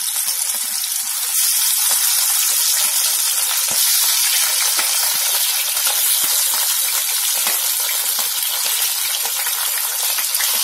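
Pieces of katla fish, rubbed with salt and turmeric, sizzling as they fry in hot mustard oil in a kadai: a steady hiss with scattered small crackles and pops.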